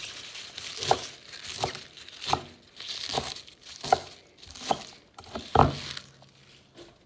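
Crinkling and rustling from food preparation by hand, with a run of seven sharp knocks about one every three-quarters of a second, the last one the loudest.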